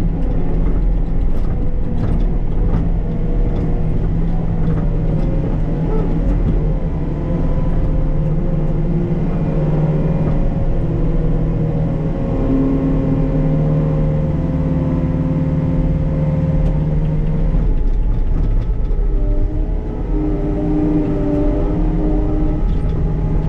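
Diesel engine of a compact construction machine running steadily under load while backfilling a buried propane tank with sand, its pitch stepping up and down as it works.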